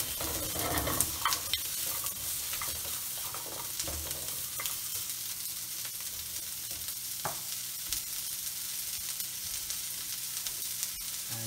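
Sliced onions and carrots sizzling in a hot non-stick wok, stirred and scraped with a spatula at first, then left to sizzle steadily with an occasional tick.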